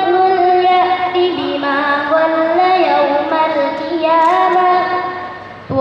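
A young woman reciting the Quran from memory in a melodic chant: one long phrase of held, wavering notes that fades out near the end, with the next phrase starting right at the close.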